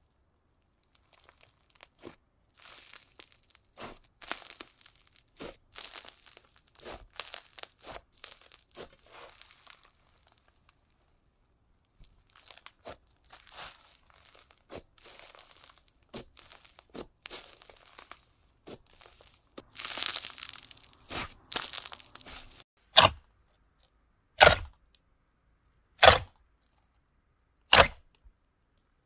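Slime being squeezed and stretched in the hands, crackling and tearing in many small irregular clicks, denser and louder around two-thirds of the way in. Near the end come four loud, sharp pops, about one every second and a half.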